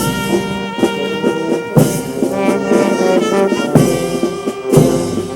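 Brass band music: trombones and trumpets playing long held chords, with new notes struck every second or two.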